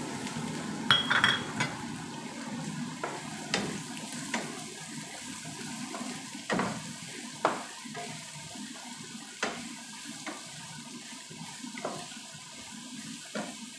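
Sliced white onions sizzling in hot oil in a frying pan, a steady hiss, while a spatula stirs them and knocks and scrapes against the pan now and then.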